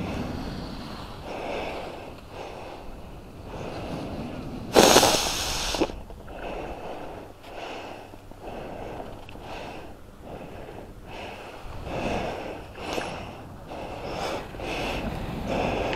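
Skis scraping and carving on packed snow in a run of turns, a swell of noise about every second, with a louder, harsher scrape about five seconds in.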